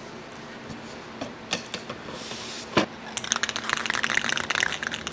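A single knock, then an aerosol can of clear coat being shaken, its mixing ball rattling quickly inside the can, starting about three seconds in.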